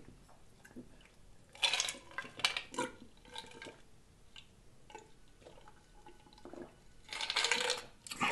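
Drinking from a tall glass of ice: liquid sloshing, swallowing, and ice cubes clinking and shifting against the glass, in two clusters of short sounds, about two seconds in and again near the end.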